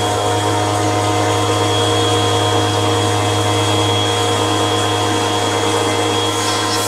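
Hoover WindTunnel Rewind bagless upright vacuum cleaner running steadily while vacuuming a rug: an even motor hum with a thin, high whine on top.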